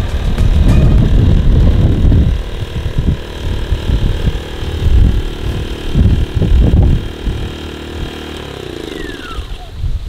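Small Biltema portable inverter generator running steadily, its petrol engine going again after a fuel return hose that had come off was refitted. Gusts of wind buffet the microphone, and near the end the engine's pitch falls.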